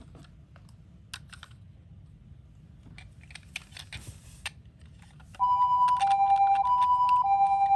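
Small plastic clicks and rattles from toy cars being handled, then about five seconds in a toy ambulance's electronic two-tone siren switches on loudly, alternating a high and a low tone about every 0.6 s.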